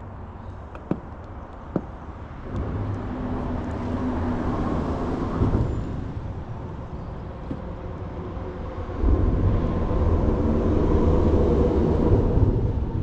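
Low rumble of a motor vehicle running, coming in about two and a half seconds in and getting louder from about nine seconds. Two short sharp clicks come before it.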